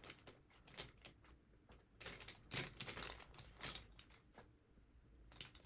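Faint, scattered clicks and taps of small makeup items being handled and moved about on a table, a little busier about halfway through.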